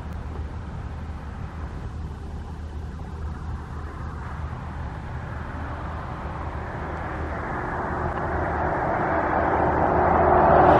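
Outdoor traffic rumble, with a vehicle approaching and growing steadily louder over the second half.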